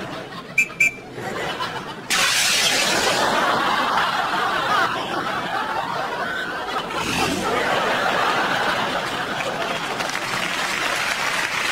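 Studio audience laughter breaks out suddenly about two seconds in and carries on loudly. Before it, two short high beeps sound about half a second apart.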